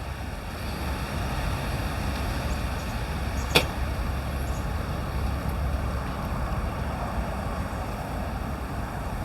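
Steady outdoor background noise, a low rumble with a hiss over it, broken once by a single sharp click about three and a half seconds in.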